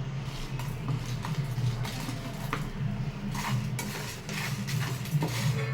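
A cooking utensil scraping and clinking in a pan while stirring whole spices being dry-roasted, in short irregular strokes, over a steady low hum.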